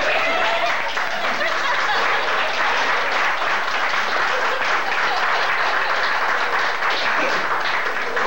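A roomful of people applauding steadily, with a few voices over the clapping in the first second.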